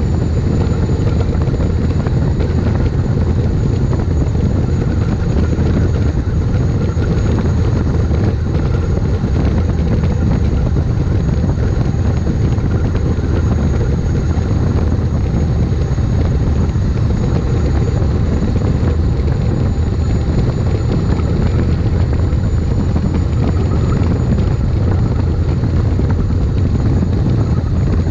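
Helicopter-type turboshaft gas turbine engine of a street rail buggy running steadily under way, a constant high turbine whine over a heavy low rumble.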